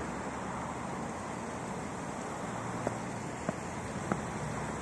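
Steady background rush of distant traffic and wind, with three sharp footsteps on stone paving about 0.6 seconds apart in the second half.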